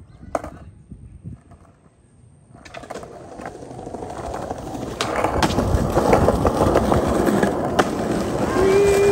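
Skateboard wheels rolling over stone paving tiles: a rough rumble that starts faint about three seconds in and grows louder, with a few sharp clicks along the way.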